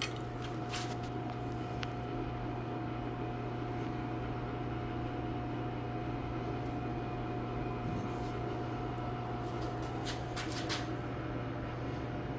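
Old AC/DC stick welder set at 35 amps, humming steadily, with a low hum and a thin higher tone, and a few faint clicks about a second in and again near ten seconds in.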